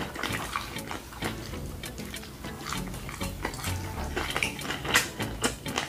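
Close-miked chewing of fried chicken wing meat, with wet lip-smacking and mouth clicks coming in irregular bursts, over quiet background music.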